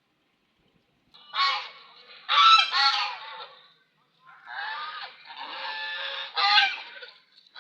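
Swans honking in a run of repeated calls. The calls start about a second in and are loudest at two to three seconds in and again near the end.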